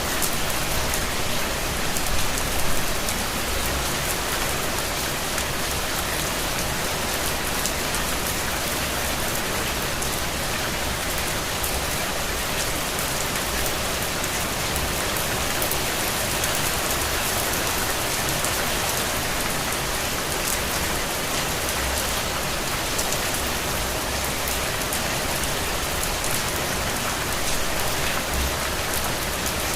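Steady rain falling on a surface, a dense even hiss with many fine drop ticks.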